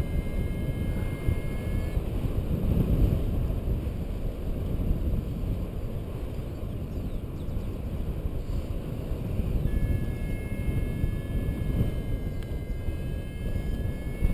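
Wind rushing and buffeting over an action camera's microphone as a paraglider glides in to land. A faint steady electronic tone from the flight variometer sounds for the first two seconds and again from about ten seconds in.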